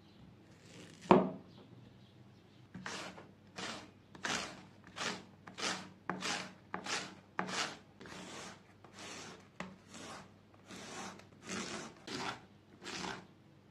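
A knife cuts the end off a zucchini onto a wooden cutting board with one sharp knock about a second in. Then the zucchini is pushed over the julienne blade of a handheld mandoline slicer, a rasping stroke about one and a half times a second, some seventeen strokes in a row.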